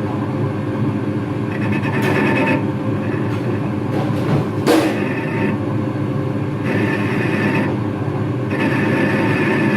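A workshop machine running steadily, with a higher squealing tone that cuts in and out in stretches of about a second, and one sharp click about halfway through.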